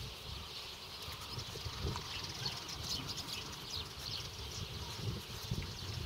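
Outdoor ambience of small birds chirping, with many quick high chirps busiest in the middle, over a low uneven rumble.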